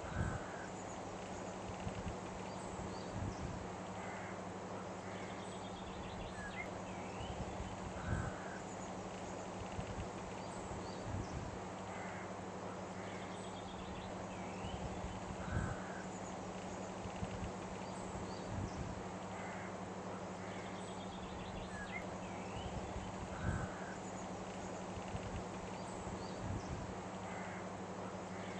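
Outdoor nature ambience: a steady noise bed with a low hum under it and scattered short bird calls, the same pattern repeating about every eight seconds as a loop.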